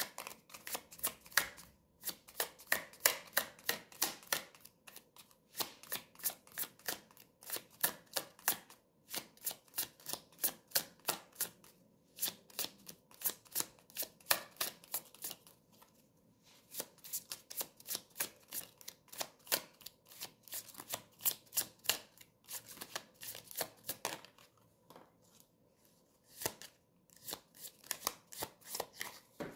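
A tarot deck being shuffled by hand: quick runs of crisp card flicks and slaps, broken by short pauses every few seconds.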